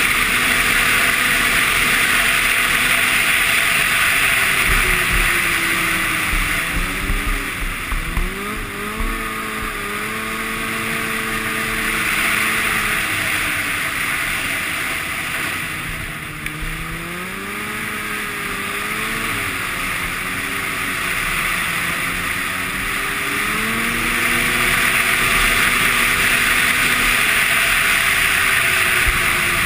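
Arctic Cat Sno Pro 500 snowmobile's two-stroke engine running at trail speed over a steady hiss of track and wind. The engine note drops and climbs back twice as the throttle is eased and opened again.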